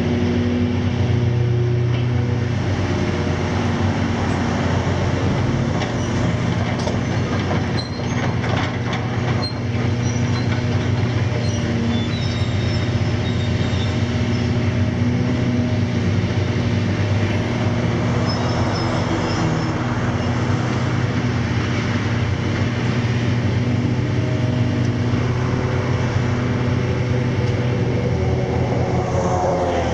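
Diesel engines of large Hitachi demolition excavators running steadily, the nearer a ZX490LCH with a 270 kW Isuzu 6UZ1X six-cylinder diesel. Concrete and scrap crunch about 8 seconds in, with thin metallic squeals now and then.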